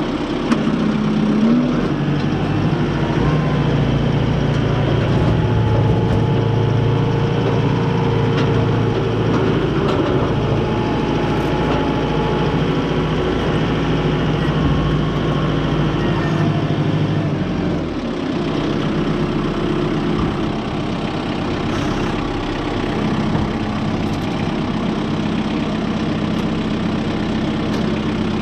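Kubota tractor's diesel engine running while driving, heard from the driver's seat. Its pitch rises briefly about a second and a half in, and about two-thirds of the way through the deep rumble drops away and the engine runs on a little quieter.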